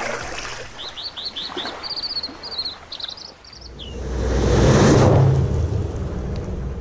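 Birds chirping in a quick run of short rising calls, then a whoosh that swells to its loudest about five seconds in over a steady low rumble: intro sound effects under an animated title sequence.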